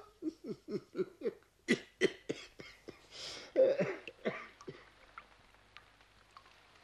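A person coughing in a quick run of short coughs, about four a second, each dropping in pitch. A few heavier coughs follow around three and a half to four and a half seconds in. The coughing then trails off into faint scattered clicks.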